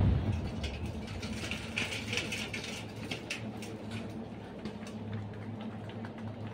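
Armoured vehicles' engines running, a steady low hum with a constant pitch. There is a brief loud low thump right at the start.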